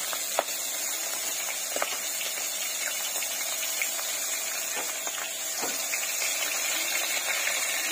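Fish pieces frying in hot oil in a kadai: a steady sizzle with a few scattered pops.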